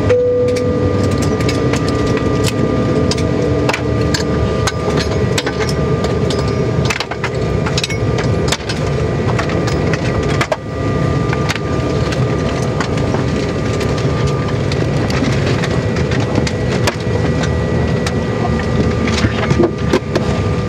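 Cabin noise of a Bombardier CRJ700 taxiing slowly after landing. A steady hum runs throughout with a few thin, steady whining tones from the rear-mounted engines, broken by frequent sharp clicks and knocks from inside the cabin.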